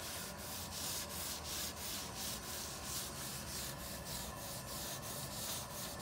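The abrasive scouring side of a kitchen sponge scrubbed back and forth over a weathered, wet wooden tabletop, a scratchy hiss with each quick stroke. The wood is being scrubbed with a 50-50 bleach and water solution to lift dark spots.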